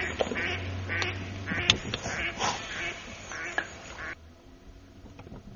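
Ducks quacking in a quick series of calls, about two or three a second, that stops abruptly about four seconds in.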